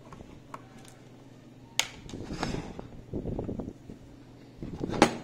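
Small screwdriver working the side-plate alignment screws out of a steel revolver frame: faint scraping and handling noise, with a sharp click about two seconds in and a louder one near the end.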